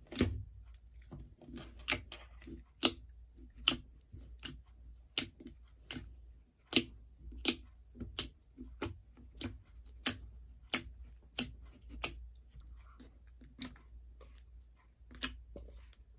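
Slime being squeezed and pressed by hand, making a string of sharp, crisp clicks and pops about once a second at uneven intervals.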